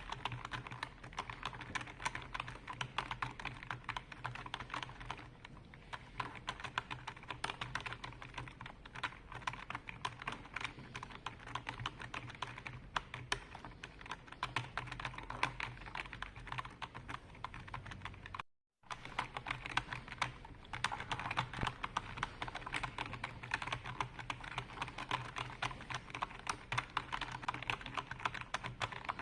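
Computer keyboard being typed on continuously, a rapid, dense stream of keystroke clicks. It breaks off completely for a moment about two-thirds of the way through.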